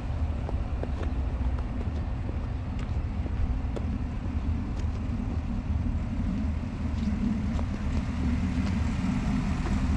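A 2024 GMC Sierra 1500 pickup's engine idling steadily, a low even rumble, with faint scattered ticks over it.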